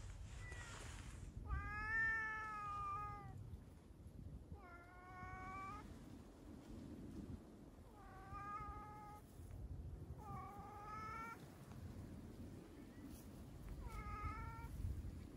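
A cat meowing five times, each meow about a second long, a few seconds apart; the first one is the loudest and longest.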